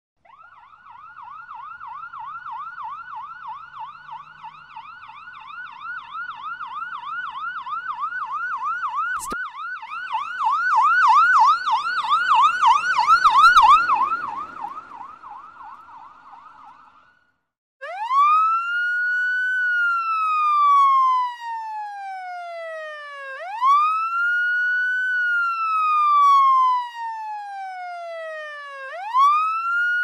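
Ambulance siren. It starts with a fast yelp of about three sweeps a second that grows louder and then fades away. After a short break it changes to a slow wail that rises quickly and falls off over about five seconds, again and again.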